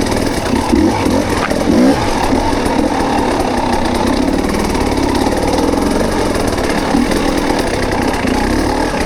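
Dirt bike engine running at low speed on a trail, with a few brief revs about one to two seconds in, then a steady drone.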